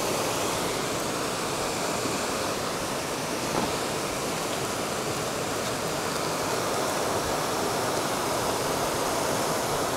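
Steady rush of water pouring over an old mill dam spillway.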